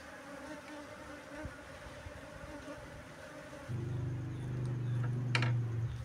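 Honeybee colony buzzing steadily in a faint hum. About two-thirds of the way in, a louder, lower steady hum joins it, and a brief sharp rustle or click comes near the end.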